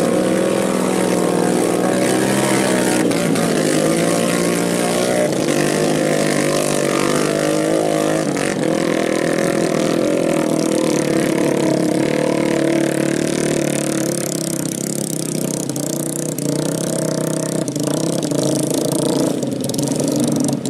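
Motorcycle engine revving hard while churning through deep paddy mud, its pitch rising and falling with the throttle. It gets somewhat quieter about two-thirds of the way through.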